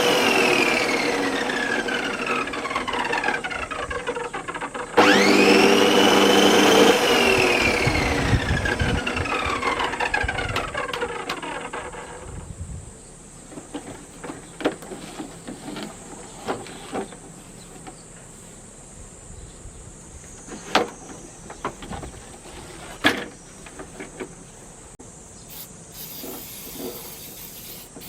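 Makita MLM-2851 reel lawn mower run briefly twice: its reel whines up to speed and then coasts down in falling pitch for several seconds after the motor cuts off. The owner puts the mower's unusual noise down to the reel-blade shaft bearing. Then a few scattered clicks and knocks.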